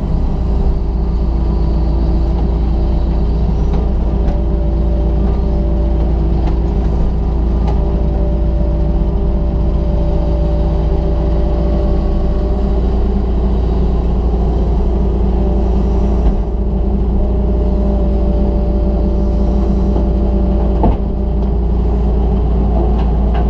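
John Deere 200LC excavator's diesel engine running steadily under load, heard inside the cab, with a hydraulic whine that comes and goes as the boom and bucket move. A couple of short knocks near the end.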